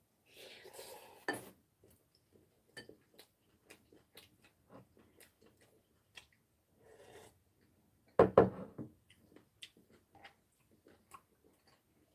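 Spoon and chopsticks clinking and scraping against ceramic and glass bowls during a meal, with mouth noises of eating and a slurp from a bowl of egg soup about seven seconds in. The loudest sound is a short clunk a little after eight seconds.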